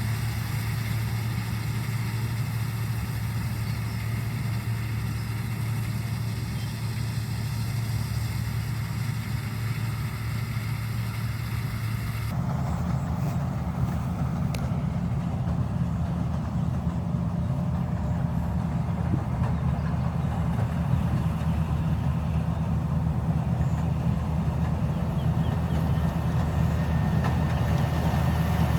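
Rice combine harvester's engine and machinery running steadily. About twelve seconds in, the sound changes abruptly to a lower, different hum.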